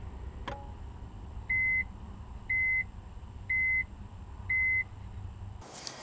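Microwave oven's end-of-cycle beeper: a click, then four short beeps on one high tone, about a second apart, over a low steady rumble. The beeps signal that the heating cycle has finished.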